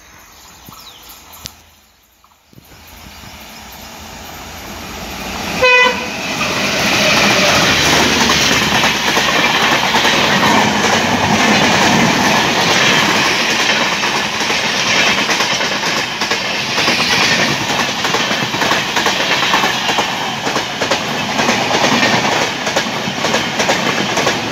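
An express train hauled by twin WDM-3D diesel locomotives passes close at speed. A short horn blast sounds about six seconds in as it approaches, then the coaches rush and rattle past, loud and steady, to the end.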